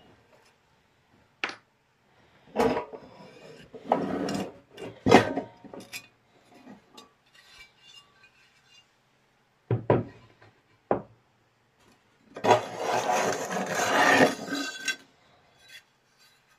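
Rusty steel lamp housing and stem being handled on a workbench: a scatter of knocks and clunks, then about three seconds of scraping and rubbing starting a little past twelve seconds in.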